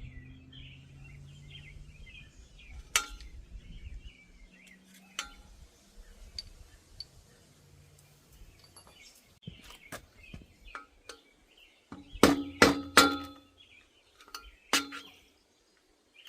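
Metal bicycle parts and tools clinking and tapping as they are handled during teardown. There are a few isolated clinks, then a quick run of louder ones about twelve seconds in and one more shortly after.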